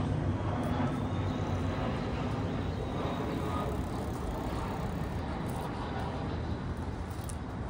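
Steady rumble of city traffic outdoors, easing off slightly as a vehicle passes.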